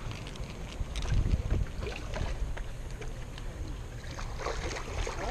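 Low rumbling wind buffeting the microphone, strongest about a second in, with faint scattered clicks.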